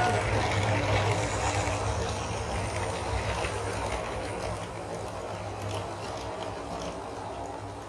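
Train running on rails as a track sound effect: a steady low rumble with faint clicks that fades away gradually.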